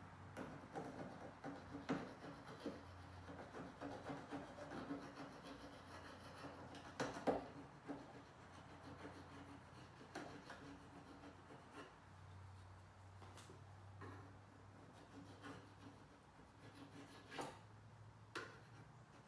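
Faint scraping of a paint scraper working old urethane sealant off the steel window opening of a Toyota Land Cruiser 80-series tailgate. The strokes are uneven and dense at first, then sparser, with occasional sharp clicks of the blade.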